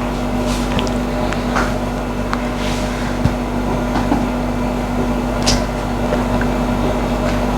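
A steady mechanical hum holding one constant tone, with a few short clicks and knocks scattered through it.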